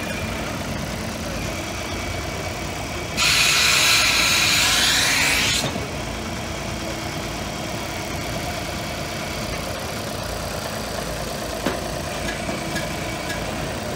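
Machine engine running steadily at idle. About three seconds in, a loud hiss of rushing air lasts about two and a half seconds, which fits air moving through the vacuum lifter.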